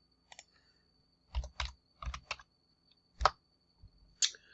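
Computer keys being pressed: about seven separate clicks, some in quick pairs, at an unhurried pace.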